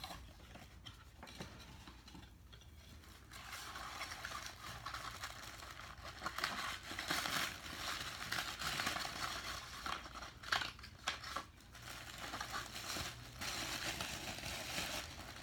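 Plastic packaging rustling and crinkling in the hands as an autographed baseball is unwrapped, starting about three seconds in, with a few short sharp clicks around ten to eleven seconds in.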